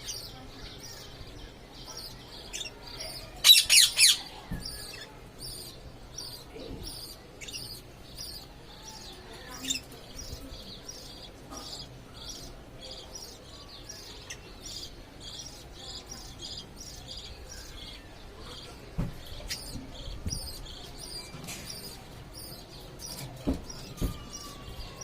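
A parrot chirping in quick, even repeats, about three short high chirps a second, with a loud burst of three shrill calls about three and a half seconds in. A few soft knocks come in the second half.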